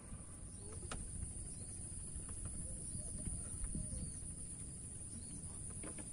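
Quiet open-air ambience by the water: a low wind rumble on the microphone under a steady high-pitched whine, with a few faint knocks, one about a second in and one near the end.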